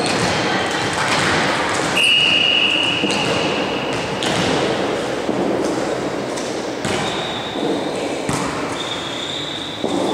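Echoing sports-hall noise during an indoor volleyball match: a steady background of distant voices and shuffling, with a few sharp knocks and a brief high steady tone about two seconds in. Near the end a sudden sharp hit stands out, as a volleyball is struck into play.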